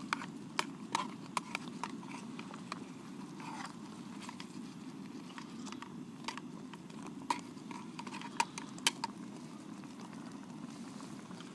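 Breakfast cooking over camp heat: a steady low rush with scattered sharp pops and crackles, a few of them loud.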